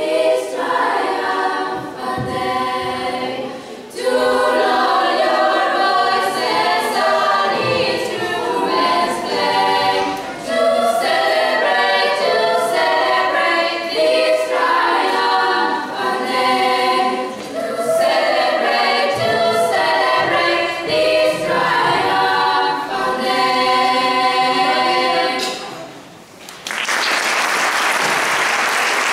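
Girls' choir singing a cappella in several parts, the piece ending about 26 seconds in. Audience applause follows near the end.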